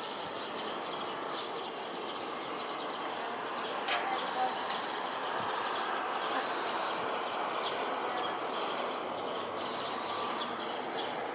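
Steady outdoor noise, a continuous rumble and hiss that swells a little partway through, with a few faint bird chirps.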